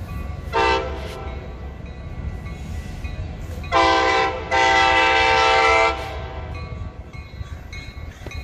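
An approaching commuter train sounds its air horn. There is one short blip about half a second in, then, near the middle, a blast of about half a second followed at once by a longer one of about a second and a half.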